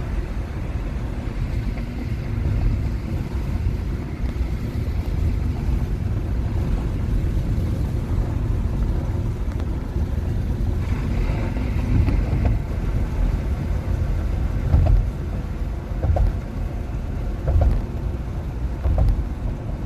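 Road and tyre noise heard inside the cabin of a moving 2021 Nissan Leaf electric car: a steady low rumble with no engine note, and a few brief low thumps in the second half.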